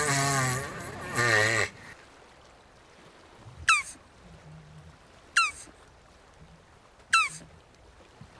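Jabuti tortoise vocalising: a wavering, pitched call for the first second and a half or so. It is followed by three short, sharp chirps, each gliding quickly down in pitch, spaced about a second and a half to two seconds apart.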